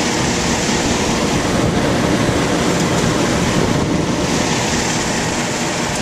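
Steady rush of air and machine noise from a running 3-ton Ruud air-conditioning condenser, its fan pushing air through an evaporator coil mounted on top.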